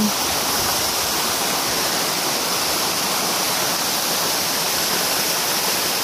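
A waterfall pouring down a rock face into a plunge pool: a steady, even rush of falling water.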